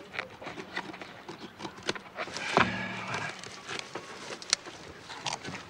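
Newspaper rustling and crackling in short bursts as it is folded and shaped into a paper hat, with one louder, briefly pitched sound about two and a half seconds in.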